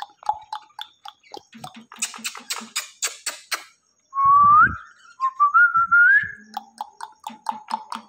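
Indian ringneck parrot chattering in quick clicks, then whistling: a short rising whistle about four seconds in, a second whistle climbing in steps, and a run of quick chirps near the end.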